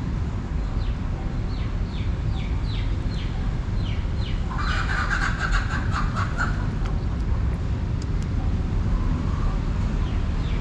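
Steady low outdoor rumble, over which a small bird chirps in a quick run of short falling notes through the first half. About four and a half seconds in, a louder rasping, chattering call lasts about two seconds.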